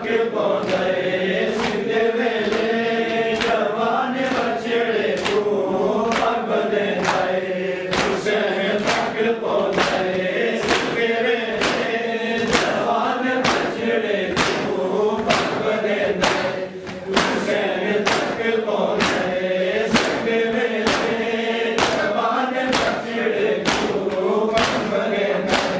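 A group of men chanting a Muharram mourning lament together while beating their chests (matam) in unison. Each stroke lands as a sharp slap on the beat, a little more than one a second.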